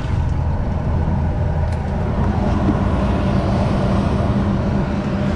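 Semi truck's diesel engine and road noise from inside the cab while driving on the highway: a steady low drone that gets a little fuller about two seconds in.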